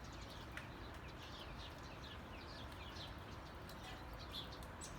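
Faint bird chirping: a run of short, falling chirps repeated several times a second, over low steady outdoor background noise.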